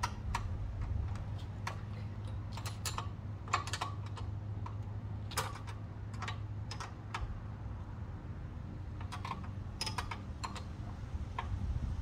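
Wrenches clicking and clinking on the front wheel's axle nuts as they are tightened: irregular sharp metal clicks in small clusters, over a steady low hum.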